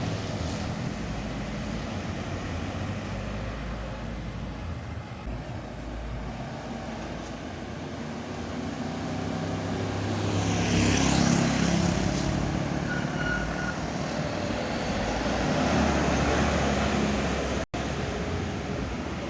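Road traffic with heavy vehicles, trucks and buses, driving past close by. Engines rumble steadily, and a loud pass-by peaks about eleven seconds in with a sweeping tyre and air hiss. Another vehicle swells past around sixteen seconds, and the sound cuts out for an instant near the end.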